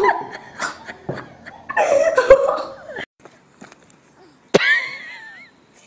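People's voices in short bursts during the first few seconds. About four and a half seconds in, a sharp click is followed by a high, wavering cry.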